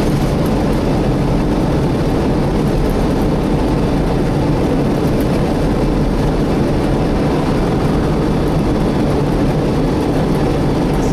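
Steady loud roar of a Volvo B7TL double-decker bus's engine cooling fan, heard from inside the moving bus along with engine and road noise.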